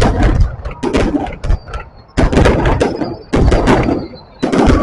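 Fireworks exploding in a rapid series of loud booms, about one a second, each trailing off in crackle.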